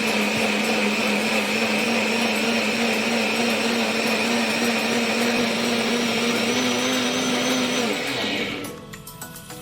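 Electric kitchen blender running steadily, blending boiled red ginger in water. It is switched off about eight seconds in, and its motor whine drops in pitch as it spins down.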